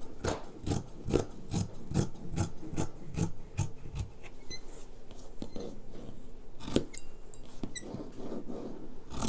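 Scissors snipping through the layered coat fabric and lining of a seam allowance, about two or three cuts a second, growing sparser after about four seconds: the seam allowance and corners being trimmed down.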